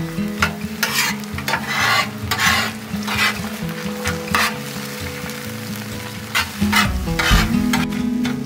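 Metal spatula scraping and chopping repeatedly across the steel flat top of a Blackstone griddle while eggs and venison steaks sizzle as they fry.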